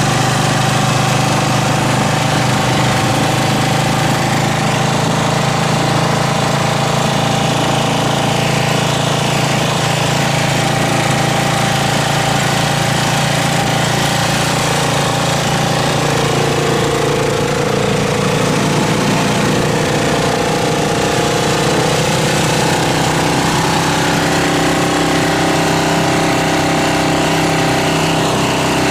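Engine of a motorcycle-and-sidecar tricycle, heard from inside the sidecar while riding, running steadily with a loud, continuous drone; its pitch shifts a little about halfway through.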